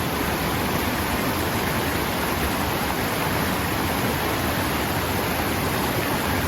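Creek water rushing steadily, an even unbroken noise.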